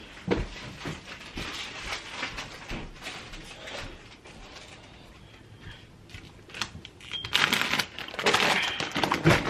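Scattered clicks and knocks of kitchen items being handled, with louder rustling from about seven seconds in.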